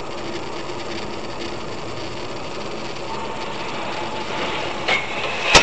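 Steady in-car engine and road noise from a moving car, recorded by its dash cam, with one sharp click near the end.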